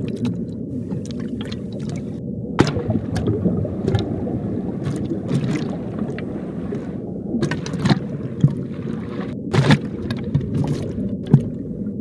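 Sea turtle biting and scraping at coral underwater: a steady, muffled underwater rumble broken by sharp crunches at irregular moments as its beak tears off coral and grinds it to powder.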